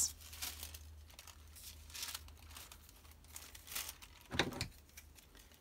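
Thin printed tissue paper rustling and crinkling as the sheet is picked up and handled. There is a short voice-like hum about four and a half seconds in.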